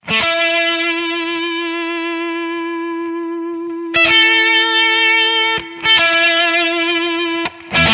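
Music: a distorted electric guitar holding long, wavering notes over a sustained low note, with new notes struck about four and six seconds in.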